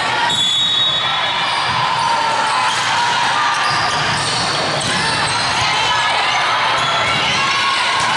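Echoing hall noise of crowd chatter and voices from the stands and court, with sneakers squeaking on the court floor and a volleyball being played.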